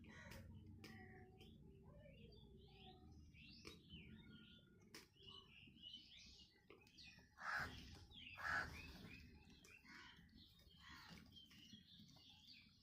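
Faint chirping of small birds, with two louder, harsh crow caws about halfway through.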